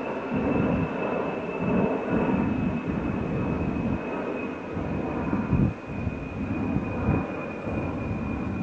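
B-52 bomber's jet engines heard from the ground as it flies past, a continuous, uneven low jet noise with a thin steady whine that drops slightly in pitch.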